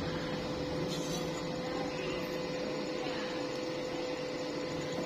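Steady machine hum with a constant tone, unchanging throughout.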